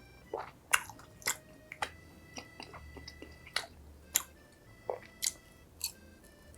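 Close-miked eating of crispy fried food: a series of sharp crunching bites and chewing, about a dozen crackles spread irregularly over the few seconds.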